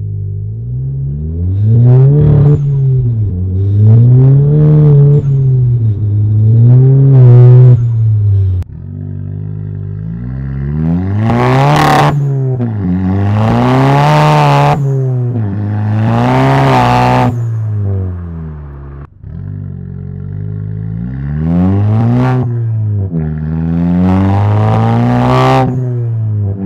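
VW Golf GTI Mk7's turbocharged 2.0-litre four-cylinder, breathing through an APR catted downpipe and a Remus sport cat-back quad-tip exhaust, revving up and dropping back about every two seconds under repeated stabs of throttle in second gear. The same run is heard three times, first from inside the cabin and then from a mic at the rear bumper, with sudden cuts between the takes.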